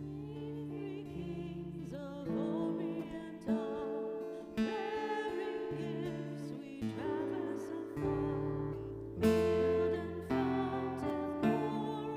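Acoustic guitar strumming chords with a voice singing over it.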